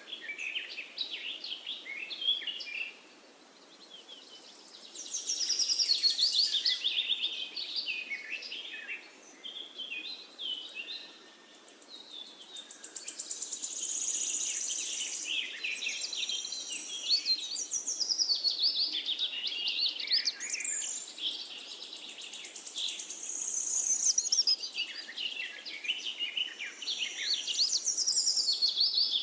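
Finches singing: long, rapid, high-pitched warbling and trilling phrases, broken by two short lulls.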